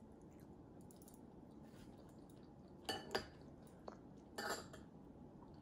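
Light clinks of cutlery against a ceramic plate: two short clinks about three and four and a half seconds in, with a small tick between them.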